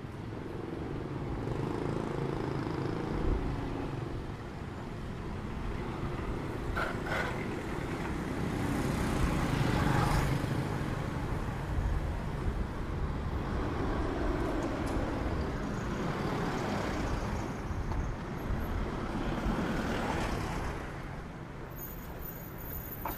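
Street traffic: motor vehicles passing close by one after another, each rising and fading, the loudest about ten seconds in.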